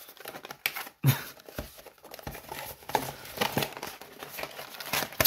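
Small paperboard box being opened by hand: the flap scraping and crinkling, with irregular rustles and small clicks as the packaging is handled.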